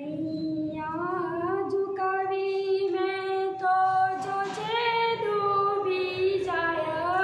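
A teenage girl singing solo and unaccompanied, a slow melody in long held notes with small glides between them and a brief break about four seconds in.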